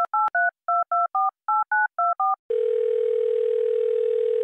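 Touch-tone telephone dialling: ten keypad beeps in groups of three, three and four, the pattern of a ten-digit phone number. About two and a half seconds in, a steady ringback tone starts on the line and stops near the end. The caller is redialling after her call was cut off.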